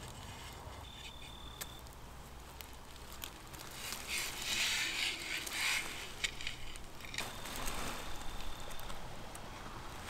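Soft rustling of cloth and plastic sheeting as an unfired clay bowl is uncovered and turned upright on a cotton cloth, loudest about halfway through. A faint, thin high whistle sounds twice.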